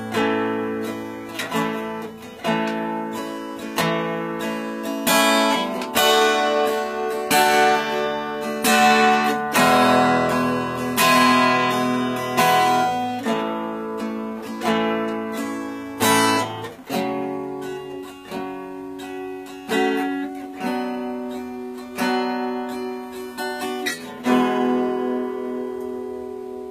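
Acoustic guitar strumming chords in an instrumental passage with no singing, with a sharp accented stroke roughly every second.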